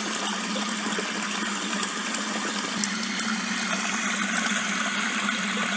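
Steady rushing noise, of the kind made by running water, with a low hum beneath it.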